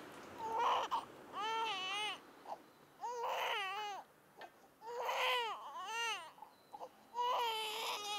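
An infant crying in about six short, separate cries, each with a wavering pitch.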